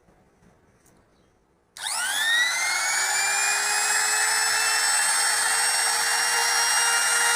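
A high-speed electric power tool motor switches on a little under two seconds in, whines up quickly to full speed, then runs steadily at a high pitch.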